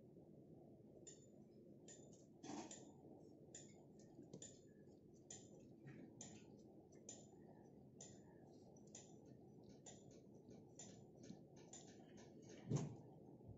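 Faint, irregular small clicks and ticks of brass binoculars being handled and adjusted by gloved hands, with one louder knock near the end.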